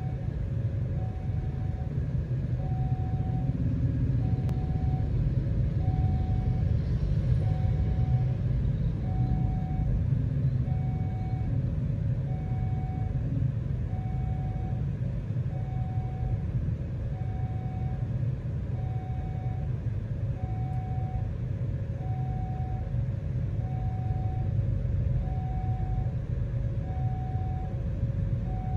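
Railway level-crossing warning bell sounding a single pitched tone about once a second, over the steady low rumble of idling cars and motorbikes waiting at the crossing.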